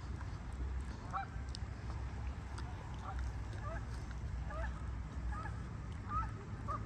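A flock of geese honking: many short honks scattered through, some overlapping, over a low steady rumble.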